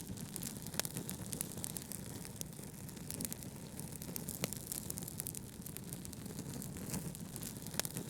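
Wood fire in a fireplace crackling, with a handful of sharp pops and snaps scattered over a steady low hiss of brown noise.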